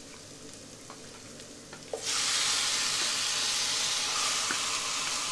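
Marinated chicken going into a hot non-stick pan of fried onions and oil. A faint sizzle with a few light clicks breaks about two seconds in into a sudden loud, steady sizzle as the wet chicken hits the oil.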